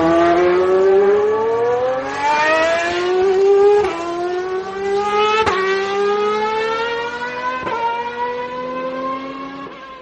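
An engine revving up through the gears. Its pitch climbs steadily, then drops back at three gear changes about a second and a half to two seconds apart, and it fades out near the end.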